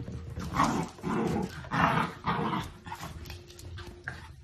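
Dachshunds growling and barking as they play-fight, with four loud outbursts in the first three seconds.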